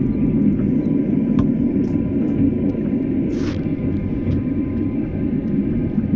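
Passenger train under way: a steady low rumble of the running carriage, with a few sharp clicks from the wheels and a short hiss about three and a half seconds in.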